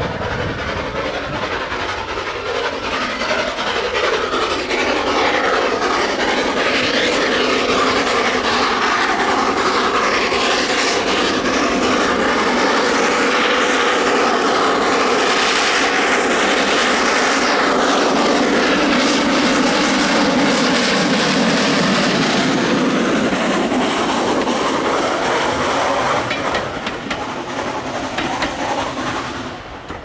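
Austerity 0-6-0 saddle tank steam locomotive working hard past, with a steady beat of exhaust chuffs. It builds up, is loudest in the middle, and fades away over the last few seconds.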